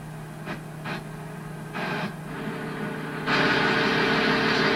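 Light knocks, then about three seconds in a much louder, steady engine noise starts suddenly, the kind of sound a boom truck's engine makes while it lifts logs onto a log wall. The sound is heard as playback through a computer speaker.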